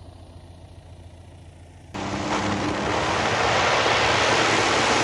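Tarragon light aircraft's six-cylinder UL Power engine and DUC Cobra propeller running on the runway: faint and distant at first, then about two seconds in an abrupt switch to a loud, close drone with a steady low hum that grows a little louder.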